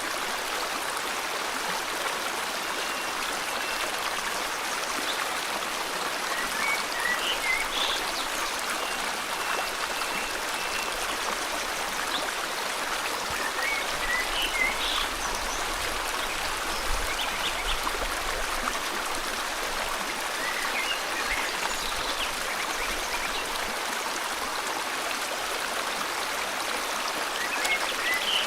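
River water flowing steadily, with birds chirping now and then over it.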